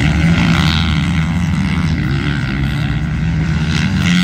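Several MX2 motocross bikes racing, their engines revving at different pitches at once as they ride through a dirt corner.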